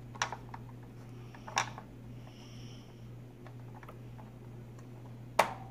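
A few sharp plastic clicks and knocks of the crayon carver being handled as a new crayon is loaded, the loudest near the end, over a steady low hum.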